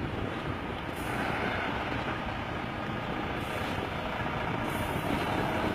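Volvo truck's diesel engine running steadily as a continuous noisy rumble, the truck stuck on a ship's loading ramp door.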